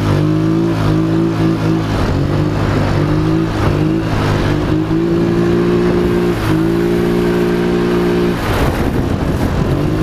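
Polaris Sportsman XP 1000 S ATV's twin-cylinder engine accelerating hard. The revs climb, ease off and climb again several times.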